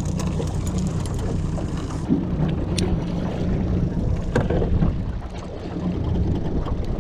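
A small fishing boat's motor running steadily at trolling speed, a low even hum with wind and water noise over it. A few light clicks and knocks from handling gear about three and four and a half seconds in.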